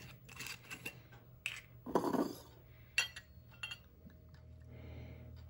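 Glass wine bottle being handled: scattered clicks and clinks, with the loudest knock about two seconds in. Near the end comes the soft hiss of wine being poured into a small cup.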